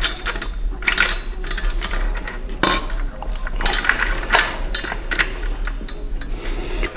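Loose steel engine parts clinking and knocking against each other and the block, in irregular strikes, as the crankshaft and timing chains of a stripped BMW S65 V8 are worked free.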